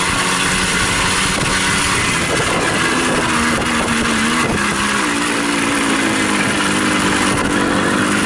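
Babetta moped's small two-stroke single-cylinder engine running under load on a rough dirt track, with a steady hiss over the engine note. The engine pitch sags about halfway through, then climbs and holds higher.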